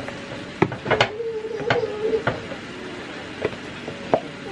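Plastic spatula knocking and scraping against a pan while stirring ground beef, with about eight irregular sharp clicks. A steady background tone is heard for about a second early on.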